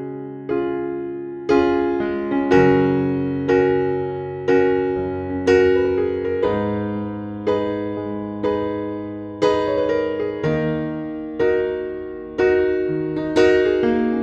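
Background music: slow electric piano playing a chord about once a second, each one struck and fading, over held bass notes.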